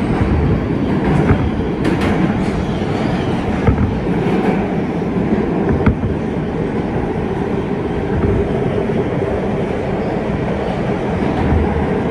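R160B subway train with Siemens propulsion running on the rails: a steady rumble of wheels and running gear, with scattered sharp clicks as the wheels cross rail joints.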